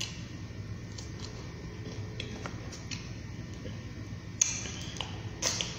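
Close-up eating sounds of chicken wings: small wet chewing and mouth clicks, then a sharp lip smack a little after four seconds in and a short run of smacks near the end as sauce is licked off the fingers. A low steady hum runs underneath.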